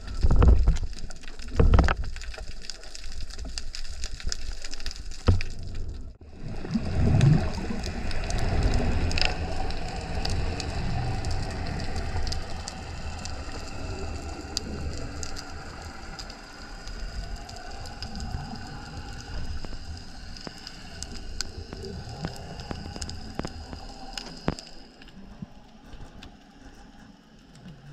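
Underwater sound from a spearfishing dive: water surging against the camera at first, then a steady hiss full of fine crackling clicks.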